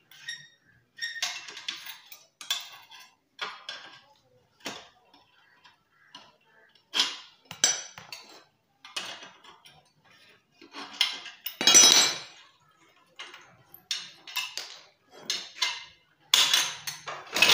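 Irregular metallic clinks and clanks as the exhaust nuts of a Honda CD-70 are undone with a T-wrench and the steel exhaust pipe and silencer are worked loose. The loudest clank comes about twelve seconds in, and a quick run of clatter follows near the end.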